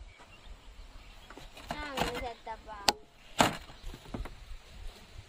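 Large knife cutting a watermelon on a folding camp table: two sharp knocks of the blade striking through onto the table about three seconds in, then a few softer cuts.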